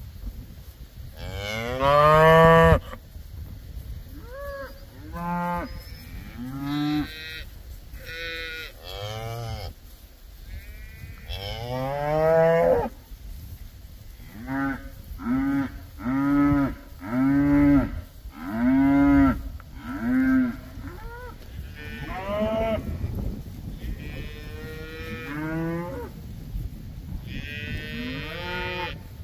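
Cattle mooing over and over. One long, loud moo comes about two seconds in, and a run of six short moos about a second apart follows in the middle, with more scattered calls near the end.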